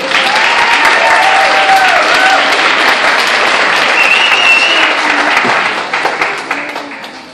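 A large audience clapping and cheering, starting suddenly and fading out near the end, with a few voices whooping over the clapping.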